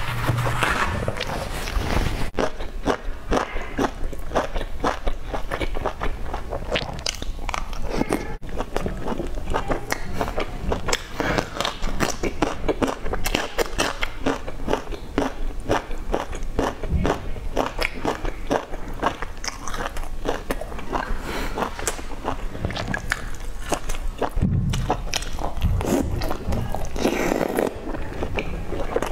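Close-miked eating: a person biting and chewing battered, fried food in sauce, a dense run of short wet clicks and smacks from the mouth.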